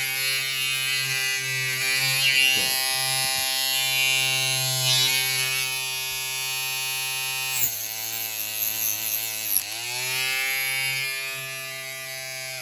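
Small handheld electric rotary tool running steadily with a buzzing whine, its pitch dipping briefly twice, about eight and nine and a half seconds in, as it bears on the work.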